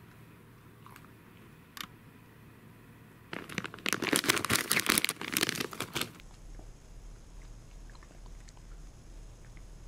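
Plastic snack wrapper crinkling loudly for about three seconds as it is handled, most likely the packaging of the mini melon-pan treats; a single sharp click comes a couple of seconds before.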